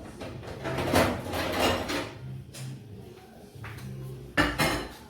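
Kitchenware handling as batter is moved from the mixing bowl onto the microwave plate: spoon and bowl scraping and rubbing, with one sharp knock about four and a half seconds in.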